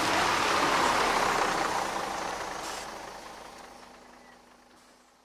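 Street traffic noise from a passing vehicle, swelling about a second in and then fading out over the next few seconds.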